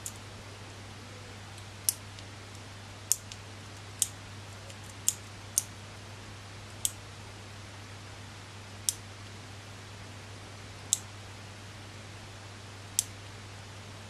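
Cut-open Cherry MX Blue mechanical keyboard switch with its keycap on, pressed about ten times at uneven intervals of one to two seconds. Each press gives a short, sharp click, made by the switch's white click jacket snapping down.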